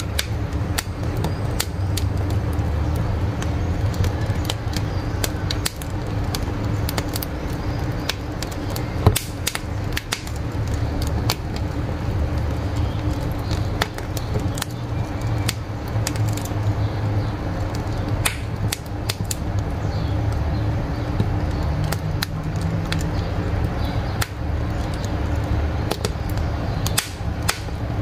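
Wood fire burning in a wood-fired cook stove, crackling and popping irregularly over a steady low rumble, with one louder pop about nine seconds in.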